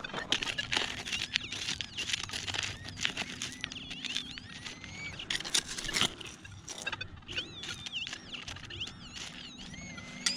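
A metal detector sounding wavering, warbling target tones over a big, iffy signal the detectorist reads as iron or a pop can, mixed with scrapes and clinks of digging and probing in stony ground.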